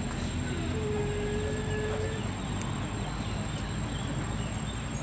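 Outdoor ambience: a steady low rumble with faint short high chirps. One steady held tone sounds for about a second and a half, starting about a second in.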